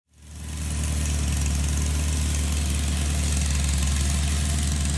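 Small gas engine of a vibratory plate compactor running steadily as the plate works over gravel, with a strong low hum; it fades in over the first second.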